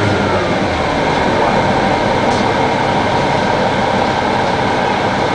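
2002 Neoplan AN-460 articulated bus with a Detroit Diesel Series 60 diesel and Allison B500R automatic transmission running at a steady pace: an even drone of engine and road noise with a thin steady whine over it.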